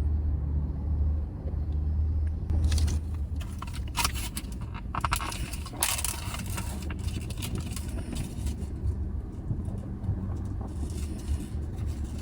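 Plastic food packaging crinkling and rustling in bursts as a pack of steamed buns is handled and opened, over a steady low rumble inside a car.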